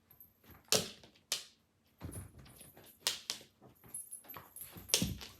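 Two dogs playing rough: short, irregular dog noises and scuffles, the loudest about a second, three seconds and five seconds in.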